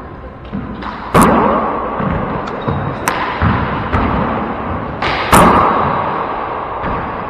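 Handball rally in an enclosed four-wall court: a rubber handball cracks off hands, walls and floor in sharp, echoing hits. The two loudest come about a second in and about five seconds in, with lighter hits and bounces between.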